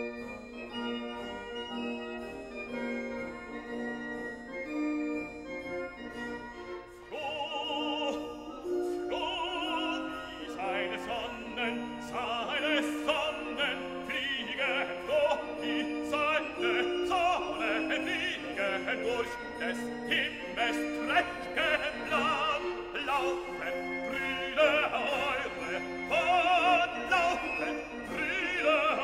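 Background music: classical accompaniment for a few seconds, then an operatic voice singing with vibrato over it from about seven seconds in.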